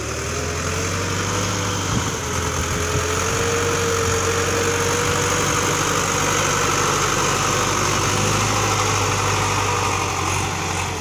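Diesel farm tractor engine running hard as the tractor drives through deep, wet mud. The engine note rises a little in the first couple of seconds, then holds steady, easing off near the end.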